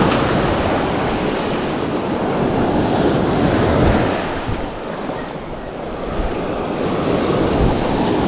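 Surf breaking and washing up the sand, with wind buffeting the microphone. The wash eases briefly about halfway through, then builds again.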